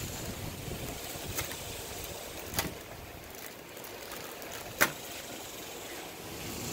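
Clear plastic bag crinkling as its tied neck is cut open with a small knife, with three sharp snaps, the loudest about five seconds in, over a steady background hiss.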